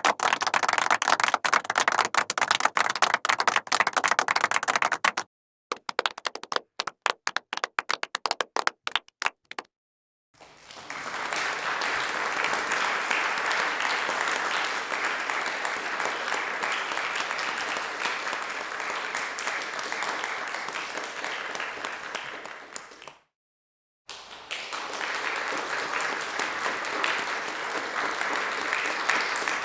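Crowd applause in several separate clips: dense clapping at first, then a thinning patter of individual claps that dies away, then about twelve seconds of steady crowd applause. After a short break, another round of applause starts near the end.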